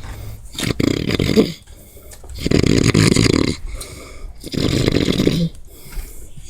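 Snoring: three long, loud snores about two seconds apart, with quieter breathing between them.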